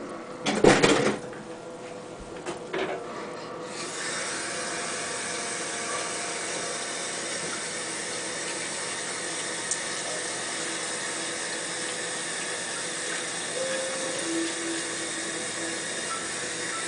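Two loud clanks in the first second, then a steady hiss that starts about four seconds in and holds.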